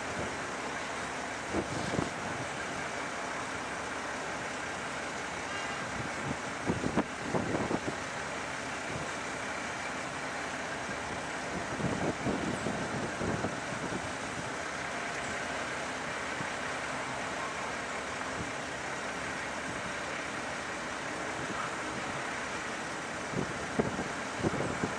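A freight train of empty intermodal flatcars rolling past with a steady rumble, broken a few times by short clusters of wheel clatter and clanks.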